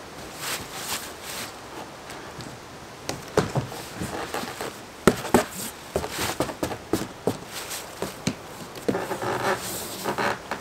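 Stiff corrugated cardboard panels of a Kartent cardboard tent being pushed, flexed and slotted together by hand: irregular sharp knocks and taps with short scraping rustles, busiest near the end.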